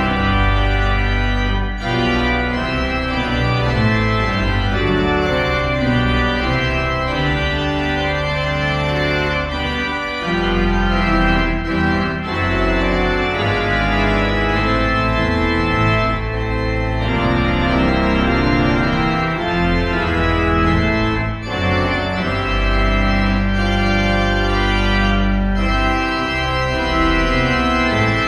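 Organ playing full, sustained chords over deep held bass notes, the postlude that closes the service.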